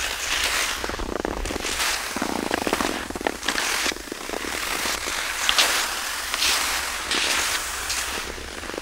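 Cross-country skis sliding and scraping over firm, crusted spring snow: a hiss that swells roughly once a second with each stride, full of small crackles and clicks.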